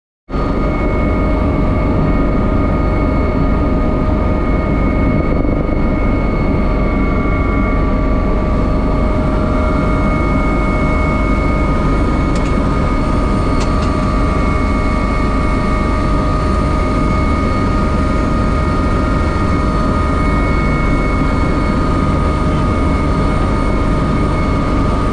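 Rescue helicopter running steadily: a loud, even drone of rotor and engine with a steady high whine over it.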